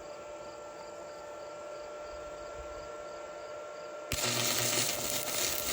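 Crickets chirping about twice a second over a steady hum. About four seconds in, the loud crackling hiss of a stick-welding arc, burning a 3/32-inch 7018 rod, starts suddenly.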